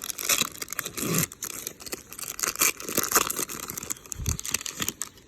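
Foil baseball-card pack wrapper being torn open and crinkled in the hands, an irregular run of crackling and tearing.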